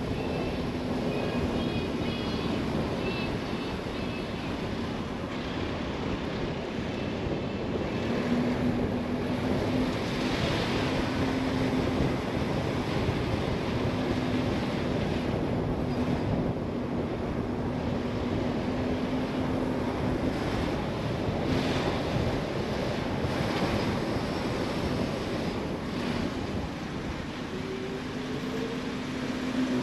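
A car driving along: steady road and wind rush over a low engine hum, with a brief rising engine note near the end.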